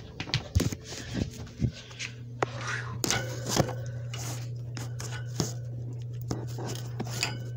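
Handling noise from a camera being gripped and moved close up: scattered knocks, scrapes and rustles. A steady low hum comes in about two seconds in.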